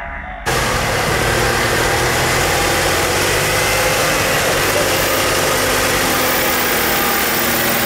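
Massey Ferguson tractor's diesel engine running steadily as it pulls a plough through the field. It starts suddenly about half a second in, as a brief stretch of music cuts off.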